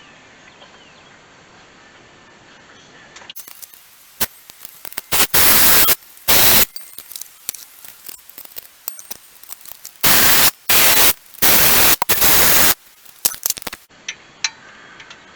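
Power tool, likely a cordless impact driver, running bolts into a replacement water pump on an LS V8 in several loud bursts of half a second to a second each, with clicks between them.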